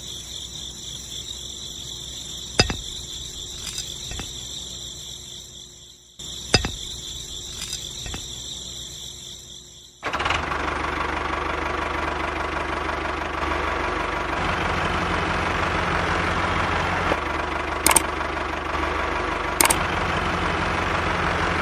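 A motor running steadily. For the first ten seconds it is quieter, with a high whine and a few sharp clicks; from about ten seconds in it is louder, with a low hum that shifts in pitch a few times.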